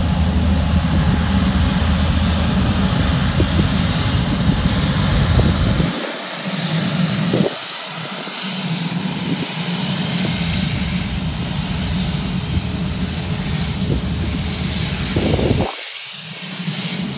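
Airliner engines running at high power as an aircraft passes close by: a loud, steady rush. A low rumble under it drops out abruptly about six seconds in and again near the end.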